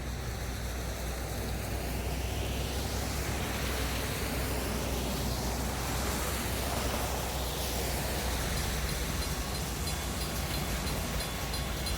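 A diesel-hauled passenger train rolling past: a steady low rumble under a rushing wheel-on-rail noise that swells and sweeps as it goes by.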